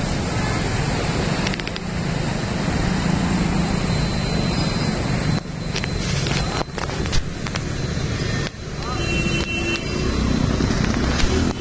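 Street noise on a waterlogged road: a steady wash of traffic and water noise with indistinct voices in the background. It breaks off abruptly and changes a few times.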